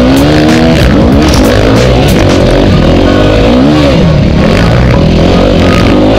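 Dirt bike engine revving up and down under load as the bike is ridden through deep sand, heard from a camera mounted on the bike.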